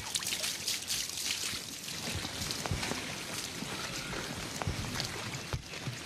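Water trickling and splashing, with a few faint low knocks.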